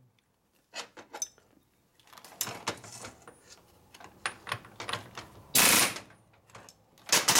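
Handheld air tool rattling in short bursts against the shaft of a Harley-Davidson 4-speed transmission, driving a tight-fitting part onto the shaft. The bursts come thicker after the first couple of seconds, and the longest, about half a second, comes about two-thirds through.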